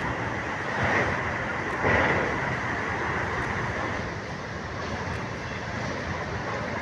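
Passenger train running across a steel truss bridge, heard from an open carriage window: a steady rush of wheel-and-rail noise, swelling briefly about one and two seconds in.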